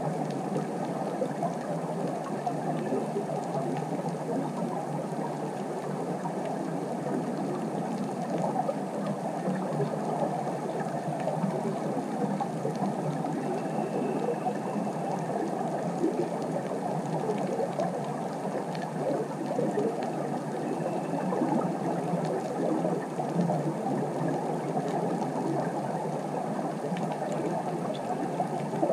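Steady underwater ambience recorded on the seabed: a low, even water hiss with a fine crackle running through it.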